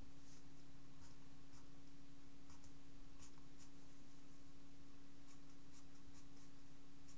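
Felt-tip pen scratching short strokes on paper, about a dozen brief strokes in irregular spurts, over a steady low hum and hiss.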